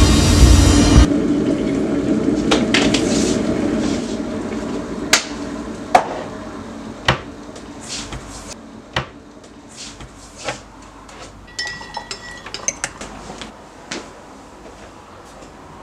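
A loud sound cuts off about a second in and its tail fades over a few seconds. Then comes a string of irregular sharp clicks and knocks, clinks of hard objects on a hard surface, about a dozen spread over the rest.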